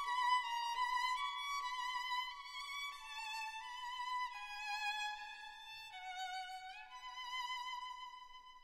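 Background music: a slow violin melody with vibrato, its notes stepping mostly downward, fading out near the end.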